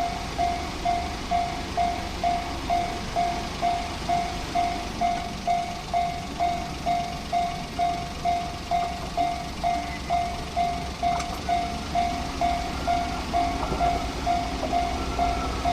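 Japanese railway level-crossing warning bell ringing, an electronic single-tone clang repeated about two and a half times a second, signalling an approaching train. Near the end the low rumble of the train comes up beneath the bell.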